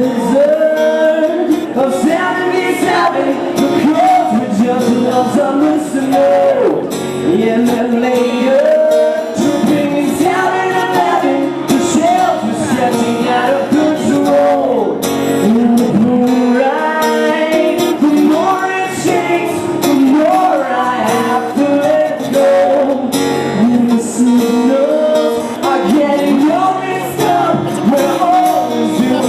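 Acoustic guitar played with a voice singing over it: an acoustic song cover.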